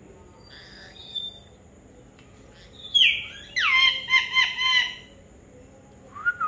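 Indian ringneck parakeet calling: a faint note about a second in, then a loud falling call about three seconds in, followed at once by a quick run of five or six sharp, shrill repeated calls; another call starts near the end.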